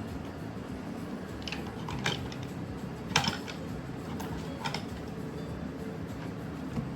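A handful of short, sharp clicks, the loudest about three seconds in, over a steady low room hum.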